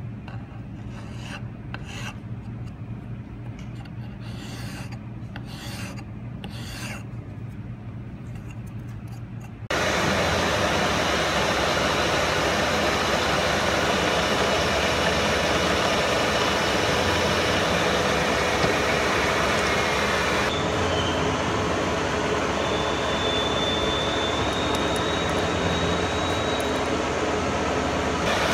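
A hand file rasping along the edge of an aluminium plate in a series of separate strokes. About ten seconds in, the sound switches abruptly to a milling machine running steadily and louder, its end mill cutting the aluminium part, with a faint high whine joining in the last third.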